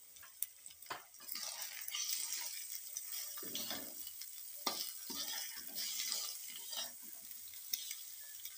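Metal spatula stirring spiced chopped carrots, onion and egg as they fry in oil in a kadai, with a steady sizzle and sharp clicks now and then as the spatula strikes the pan.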